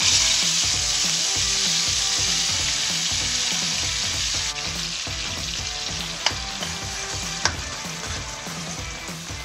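Wet chili spice paste hitting hot cooking oil in a stainless steel wok and frying with a loud sizzle that starts at once, drops to a quieter steady sizzle about halfway through. Two sharp clinks of a metal spoon on the pan as the paste is stirred.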